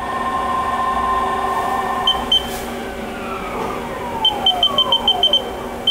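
Haas ST-30 CNC lathe spindle and 15-inch hydraulic chuck turning at 500 RPM in low gear with a steady whine, then spinning down to a stop, its pitch falling over the last few seconds. Short high beeps from the control sound twice about two seconds in, and in a quick run near the end.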